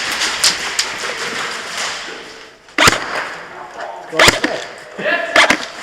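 Airsoft guns firing during close-quarters play: sharp single cracks about three seconds in and again a second and a half later, then a quick cluster of cracks near the end.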